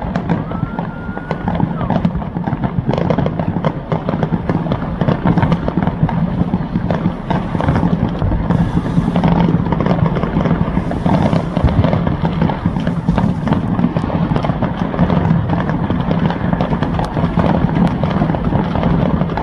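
Many neighbourhood fireworks going off at once: a dense, continuous crackle of firecrackers and bangs from aerial shells, with a short rising whistle about a second in and several brief fizzing bursts in the middle.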